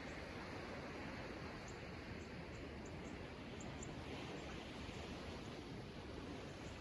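Faint, steady outdoor background hiss, with small birds giving short, high, faint chirps several times in quick succession during the first half.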